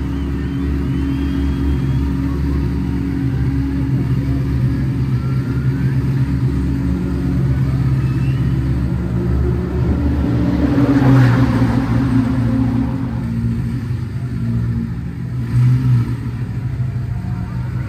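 A car engine running steadily with a deep, low note. About ten seconds in it swells louder, then its pitch sinks back down.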